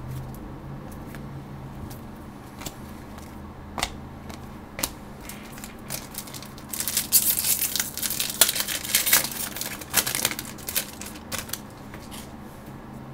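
A foil trading-card pack being torn open and handled: a few sharp clicks and rustles, then a few seconds of loud crinkling and tearing of the wrapper about halfway through, over a steady low hum.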